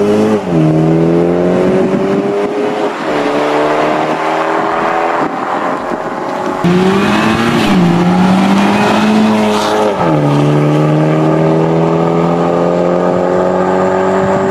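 BMW G22 430i's turbocharged four-cylinder accelerating through an Fi valvetronic cat-back exhaust. The pitch climbs, then drops sharply at upshifts about half a second in, again near the middle and about ten seconds in, and the pitch holds steady between shifts.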